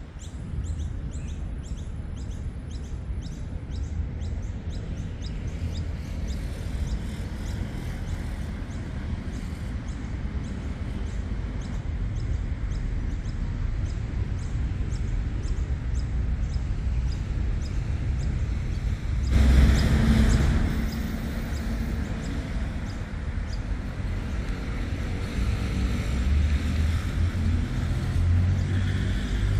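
Steady low rumble of city road traffic, with a louder rush about a second long roughly two-thirds of the way through. Over the first eight seconds a bird chirps rapidly, about three times a second.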